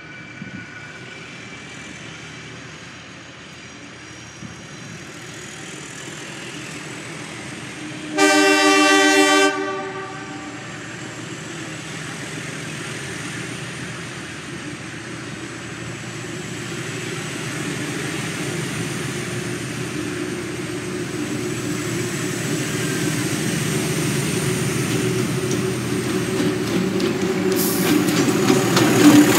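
A diesel locomotive's horn sounds one blast of about a second and a half, roughly a third of the way in. After it, the engine of Alco diesel locomotive 866 rumbles, growing steadily louder as it approaches hauling its train, with wheel clatter as it draws alongside near the end.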